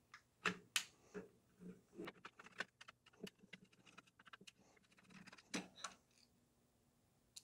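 Faint, scattered small clicks and taps of plastic parts being handled, as a screw is backed out and a plastic cover is worked loose from a gel blaster's shell.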